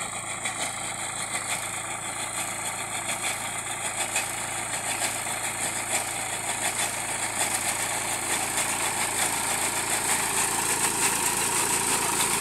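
Swaraj 744 FE tractor's three-cylinder diesel engine running steadily while its front-mounted hydraulic reaper cuts standing paddy, with a fast, even clatter over the engine. It grows gradually louder as the tractor comes closer.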